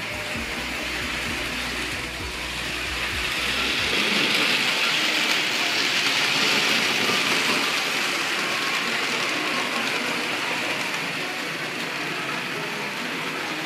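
Märklin HO model train running on metal track: a steady rolling rattle of wheels and motor that grows louder about four seconds in as it passes close, then slowly fades.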